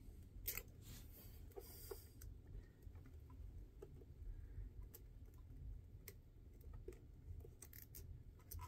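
Faint scattered clicks and rustling of a plastic cable tie being fastened around cables, with a short zip-like hiss about two seconds in.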